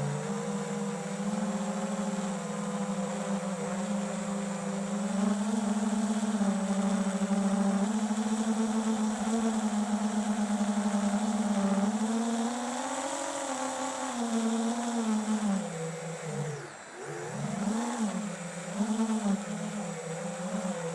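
Flywoo FPV quadcopter's brushless motors buzzing steadily, the pitch rising and falling with the throttle. About three-quarters of the way through, the throttle drops sharply, then comes back in several short bursts.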